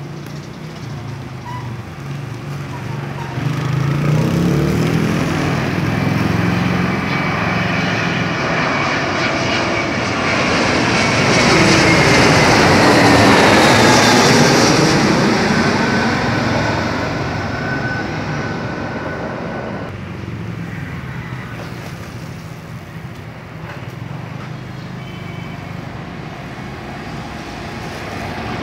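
Twin-engine jet airliner on final approach passing low overhead with its landing gear down. The engine noise builds to its loudest about halfway through as the plane passes, a whine in it falls in pitch, and then it slowly fades away.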